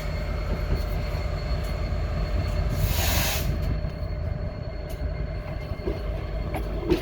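Freight train of tank wagons rolling past, a steady rumble of wheels on the rails with faint steady squealing tones. A short hissing burst comes about three seconds in.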